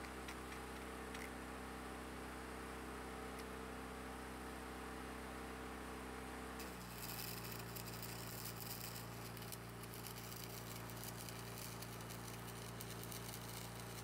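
Steady machine hum, then about halfway in a wire-feed welding arc strikes and crackles and hisses steadily to the end, the hum changing as the arc takes load.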